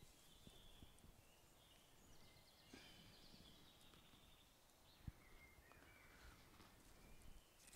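Near silence: quiet woodland ambience with faint bird calls and a single soft thump about five seconds in.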